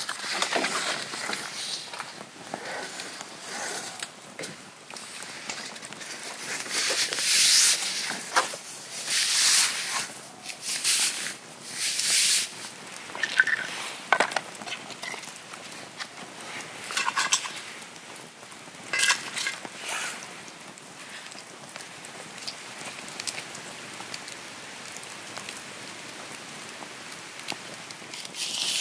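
Wood fire crackling in a metal fire bucket, with sharp pops, and uneven bursts of rustling in the first half.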